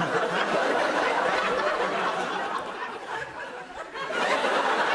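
Studio audience laughing, easing off a little about three and a half seconds in, then swelling again.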